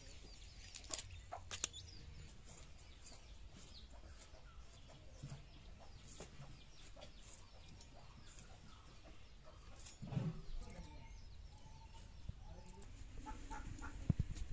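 Chickens clucking faintly, with a louder call about ten seconds in. A few sharp clicks near the start come from spinach stems being chopped on a curved blade.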